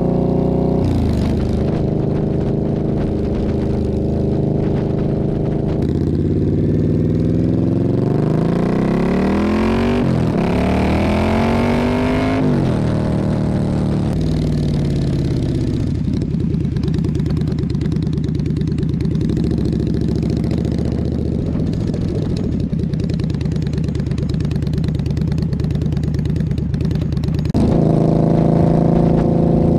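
Indian Scout V-twin running through a Dean Speed Rampage slip-on exhaust. About six seconds in, its pitch sweeps up, drops and sweeps up again over several seconds, then settles to a steady, low, fast-pulsing run.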